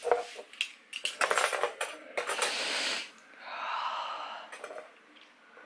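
Handling noise: a quick run of small clicks and knocks mixed with rustling, then a softer, fainter stretch.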